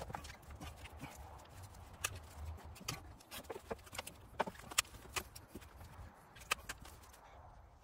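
Irregular light clicks and metal taps as parts and pliers are handled against a pickup's rear leaf spring and axle while fitting an air-spring suspension kit.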